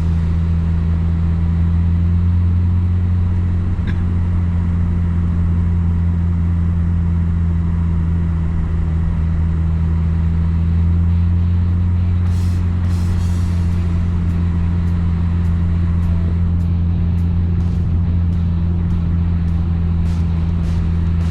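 Car driving at a steady pace: a continuous low drone of engine and road noise.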